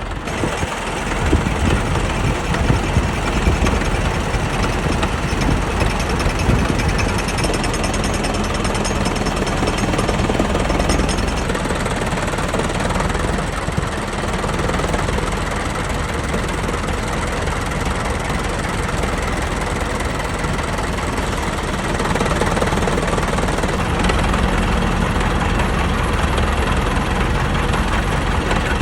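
1920 Minneapolis 22-44 gas tractor engine running steadily with a rapid, loud beat, under load driving a sawmill.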